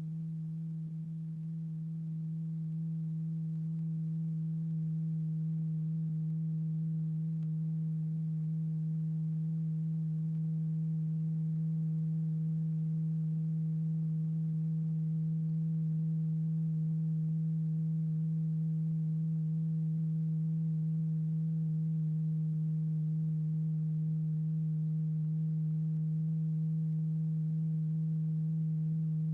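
A steady, low, pure electronic tone with faint overtones, holding one pitch and growing slightly louder over the first few seconds. It is the audible frequency that drives the vibrating diaphragm in a cymatics experiment.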